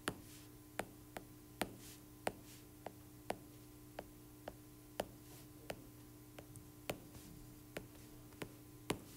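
Faint, irregular clicks of a stylus tip tapping on a tablet's glass screen while writing letters and drawing lines, about two a second, over a low steady hum.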